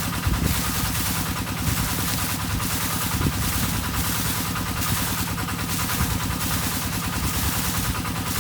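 A rice-field water pump's engine running steadily, with a chorus of frogs calling in swells about once a second over it.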